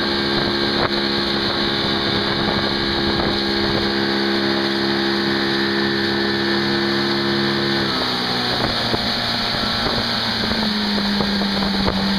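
Motorboat engine running at speed while towing a tube, with the rush of the wake and wind over it. The engine note drops a little about two-thirds of the way through, then holds steady.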